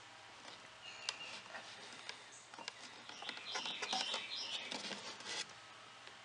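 Small handling noises from rummaging about a workbench for a tool: scattered light clicks and taps, with a few short squeaks about a second in and around the middle.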